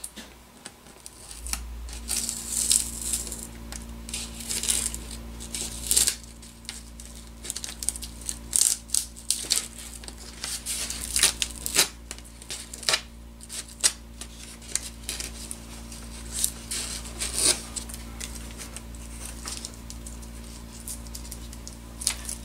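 Blue painter's tape being peeled and torn off a foam model-seaplane float in a string of short, irregular rips, some of it stuck down with dried urethane glue, and the removed tape crumpled. A steady low hum comes in about a second and a half in.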